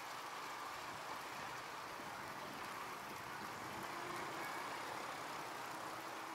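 Distant diesel locomotive running, faint and steady, with a faint low hum coming in about halfway through.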